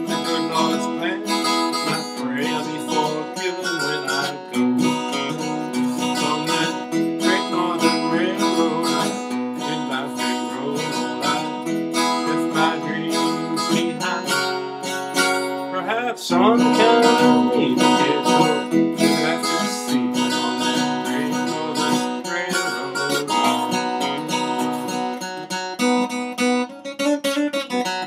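Instrumental break of a bluegrass song: acoustic guitar strumming, with a melody line that has some sliding notes about halfway through.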